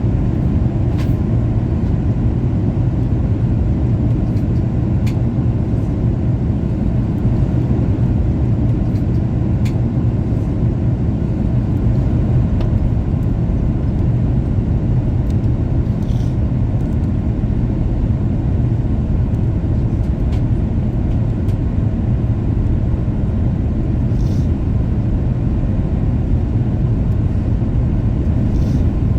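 Steady low cabin rumble of a Boeing 737 MAX 8 in descent: airflow over the fuselage and the CFM LEAP-1B engines at reduced power, heard from a seat near the front of the cabin. A few faint clicks sound now and then.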